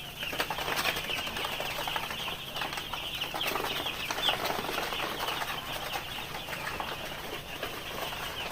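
A flock of three-day-old broiler chicks cheeping continuously: a dense chorus of many short, high peeps overlapping without a break.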